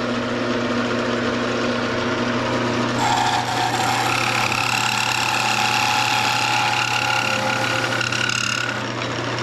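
Wood lathe motor running steadily with a pine blank spinning. From about three seconds in, a higher-pitched scraping whine joins it, as a turning tool cuts the spinning pine.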